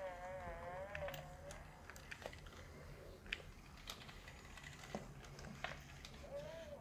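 Sony Aibo ERS-1000 robot dog making its sleepy electronic vocal sounds: a wavering, warbling whimper lasting about a second and a half at the start, and a short rising-then-falling whine near the end. Scattered light clicks and taps come from a hand stroking its plastic back.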